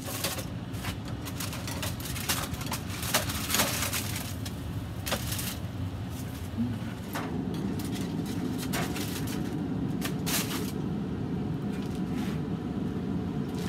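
Metal tongs clicking against a grill grate and aluminium foil rustling as foil-wrapped racks of ribs are lifted off the grills. The sharp clicks and crinkles come irregularly over a steady low hum.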